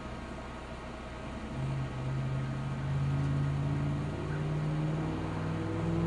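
Heavy truck diesel engine running, its pitch stepping up as it revs: once about a second and a half in, then again around four seconds and near the end.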